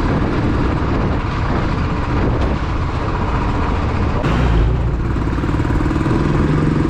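Motorcycle engine running steadily while riding at low road speed, heard from on the bike. A louder low rumble swells briefly a little past the middle.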